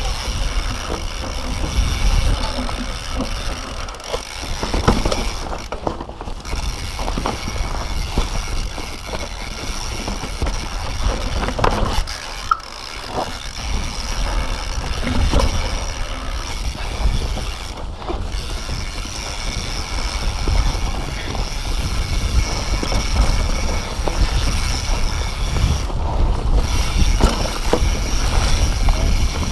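Mountain bike ridden fast down a rough, rocky trail: constant rumble of wind on the microphone and tyres on dirt, with rattling and knocks from the bike over rocks and roots. A high whirr runs over it and cuts out briefly a few times.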